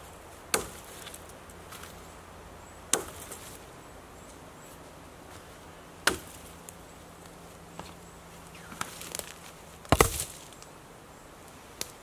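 Hatchet chopping a birch branch: single sharp blows a few seconds apart, about five strong ones with a few lighter knocks between. The hardest is a quick double strike near the end.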